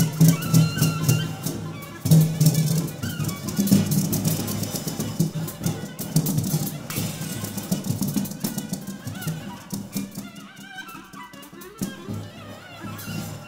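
Music with drums and a shaking, rattle-like percussion and a wavering melody line.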